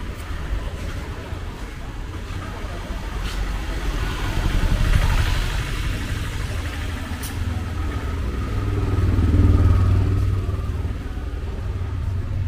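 Street traffic in a narrow street: motor vehicle engines rumbling past close by, swelling about five seconds in and again, louder, near ten seconds.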